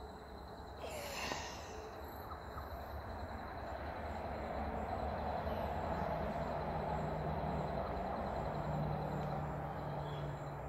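Distant engine rumble that swells over several seconds, with a steady low hum coming in about halfway through.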